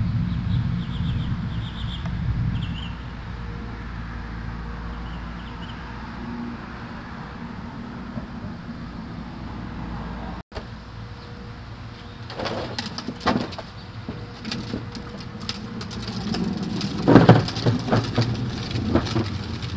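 Outdoor ambience: a steady low rumble of distant traffic with a few short bird chirps early on. After a brief dropout about halfway, a run of irregular knocks and rustles follows, loudest near the end.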